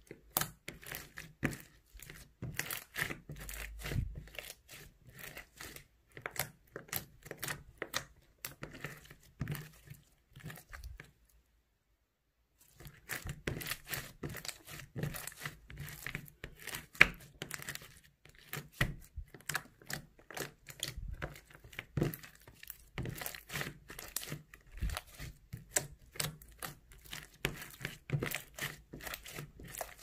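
Hands squeezing and stretching clear slime packed with foam beads: a dense run of sticky crackles and small pops, broken by about a second and a half of silence near the middle.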